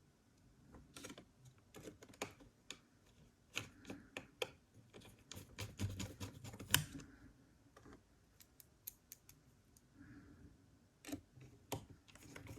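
Screwing the 2.5-inch drive mounting bracket back into a laptop chassis with a small screwdriver: light, irregular clicks and ticks of the driver bit, screws and metal bracket.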